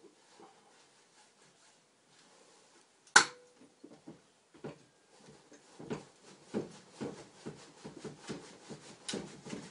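Vise-grip locking pliers clamped onto a rusted bolt stub, with one sharp metallic snap about three seconds in, then irregular clicks, knocks and scraping as the bolt is worked to break it free.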